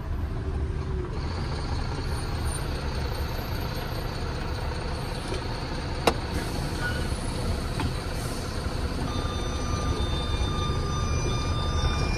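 Truck engine running, heard from inside the cab as a steady low rumble, with a single sharp click about six seconds in.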